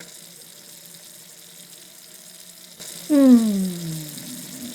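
Water running steadily from a tap into a sink. About three seconds in, a loud tone slides down in pitch over about a second, then fades.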